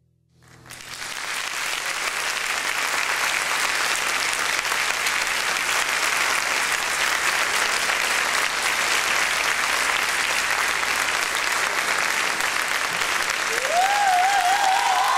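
Theatre audience applauding at a curtain call. The clapping builds within a second of near silence and then holds steady and dense. Near the end a single voice lets out a high, wavering cheer over the applause.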